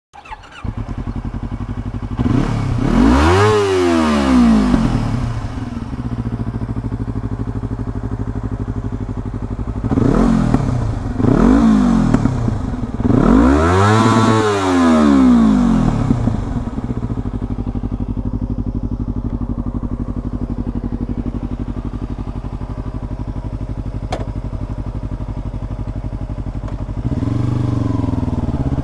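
Yamaha R25's 250 cc parallel-twin engine idling through a Proliner TR1R slip-on exhaust, revved in short blips: one about two seconds in, two around ten seconds and a longer one around fourteen seconds. Each rev rises and falls back to a steady idle. The idle lifts a little near the end.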